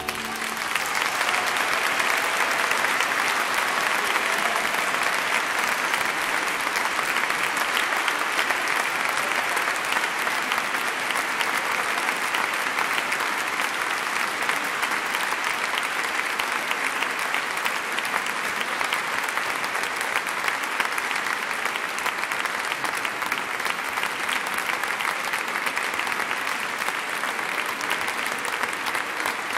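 Concert audience applauding steadily after the piece ends, the clapping easing off slightly toward the end.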